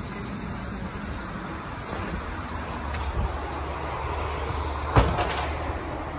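Peterbilt 320 garbage truck's natural-gas engine running steadily, with a single sharp clank about five seconds in as its Amrep HX-450 automated side-loader arm takes hold of a cart.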